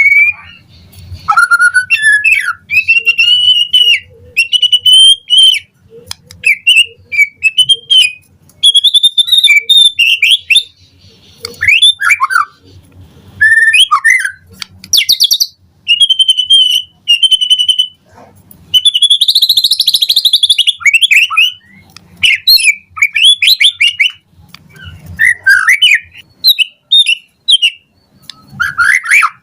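White-rumped shama singing in loud, varied phrases of whistles, slurred notes and rapid trills, each about a second or two long with short pauses between, the full varied song that keepers call gacor.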